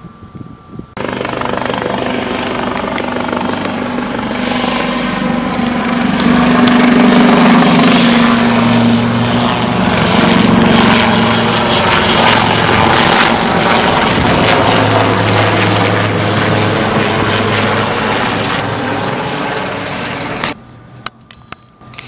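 Royal Navy Westland Lynx helicopter flying past: loud rotor and turbine noise that swells to its loudest around the middle of the pass, then cuts off suddenly near the end.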